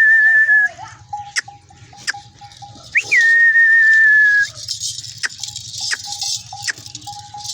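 Loud whistled notes, twice: each jumps up in pitch, then holds a steady tone for about a second and a half. A few sharp clicks and a fainter broken note sound between them.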